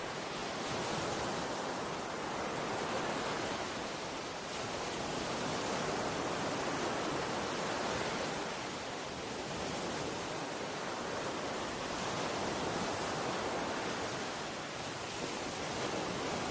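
Steady rushing noise of sea waves washing, swelling and easing about every five seconds.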